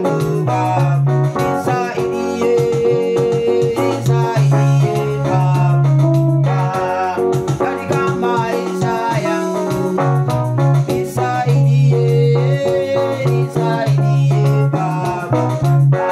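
Upbeat gospel music with a Latin dance feel, played on an electronic keyboard, with a strong bass line and a busy melody.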